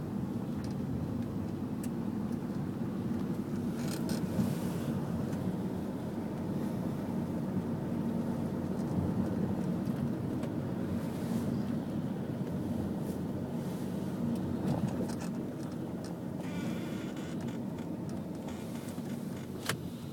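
Steady low rumble of a car driving along a road, heard from inside the cabin, with a few faint brief rattles.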